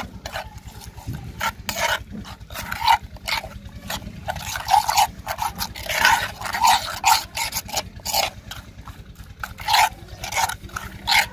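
A spoon stirring and scraping a thick yogurt-and-spice marinade around an earthenware bowl, in quick irregular strokes, over a steady low hum.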